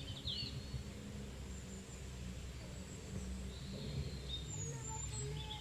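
Outdoor ambience: a few short bird chirps near the start and again near the end, over a low steady rumble and a faint thin high-pitched whine.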